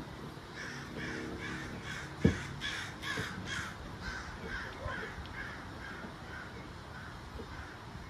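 A bird giving a long run of repeated harsh calls, about two or three a second, loudest around three seconds in and fading away near the end. One sharp knock comes a little over two seconds in.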